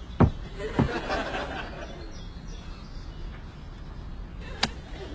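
Two heavy thumps about half a second apart, followed by brief studio-audience laughter. Near the end comes a single sharp click, like a suitcase catch being flipped open.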